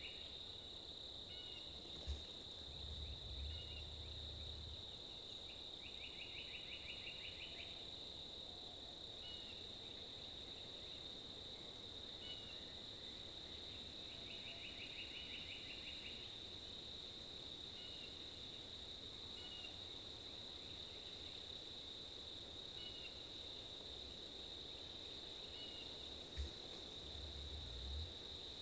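Wild turkey gobbler in strut spitting and drumming twice: a sharp spit followed by about two seconds of low drumming, once about two seconds in and again near the end. A steady high insect buzz and a short trill repeating every few seconds run underneath.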